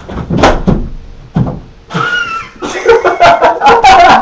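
Two sharp hits about a second apart, then a person's voice cries out and breaks into rapid laughter.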